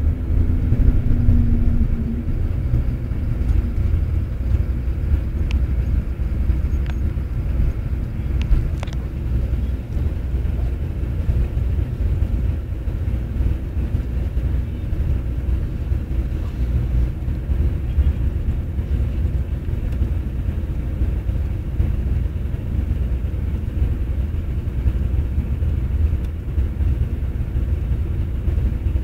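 Steady low rumble of a moving passenger coach's engine and tyres heard from inside the cabin. A steady low tone sounds over the first two seconds.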